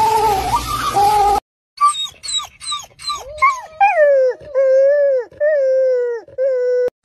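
A canine giving a quick run of short yips, then four drawn-out whining howls, each sliding down in pitch at its end. It comes in after a brief gap that follows a noisier stretch of a different pitched call.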